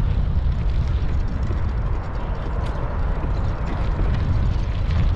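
Wind buffeting the microphone during a bicycle ride: a steady low rumble with a few faint ticks.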